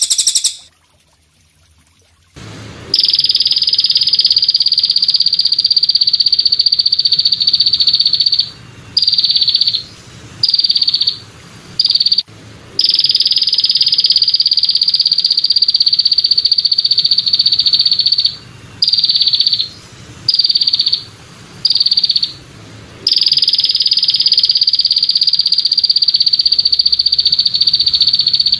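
Belalang kecek katydid calling: a loud, high, even buzzing trill held for about five seconds at a time, each followed by three short buzzes of under a second. It begins about three seconds in.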